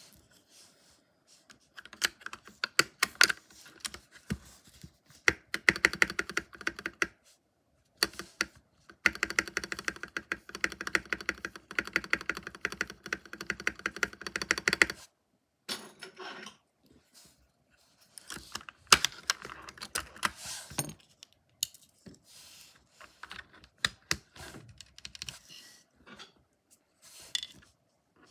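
Mechanical keyboard spacebar with a white-and-grey marbled keycap being pressed again and again: runs of clacking taps, fastest and densest in the middle, with a short pause about halfway. Sparser, quieter clicks follow near the end.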